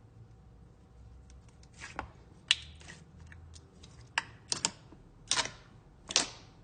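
Slime being squeezed and poked, giving a dozen or so irregular sharp clicking pops, the loudest about two and a half seconds in.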